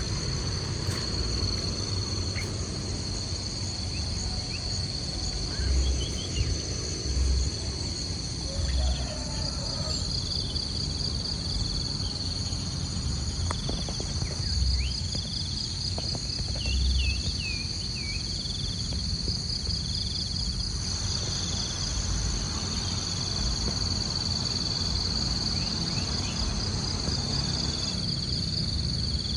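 Steady high-pitched insect chorus, with another insect call pulsing about every second and a half through the second half. There are a few short bird chirps and occasional low rumbles.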